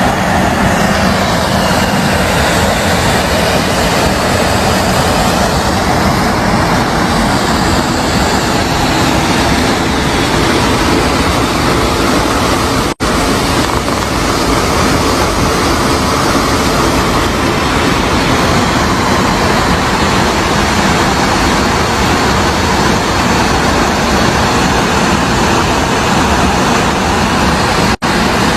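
Loud, steady rush of fast-flowing floodwater, an even noise with no breaks except two brief cutouts, about halfway through and near the end.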